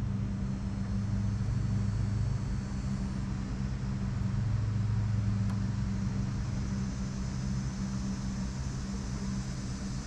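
Steady low mechanical hum of a motor or machine running, with a few fixed low tones that hold throughout.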